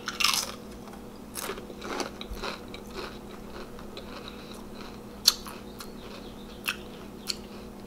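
A Pringles potato crisp bitten with a loud crunch just after the start, then chewed with scattered smaller crunches over the next few seconds. A few sharp clicks come later on, over a faint steady hum.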